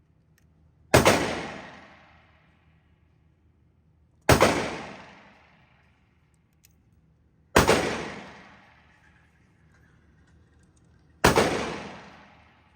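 Four single pistol shots from a 9mm Taurus GX4, fired slowly about three and a half seconds apart, each cracking loudly and ringing out in an echo that dies away over about a second.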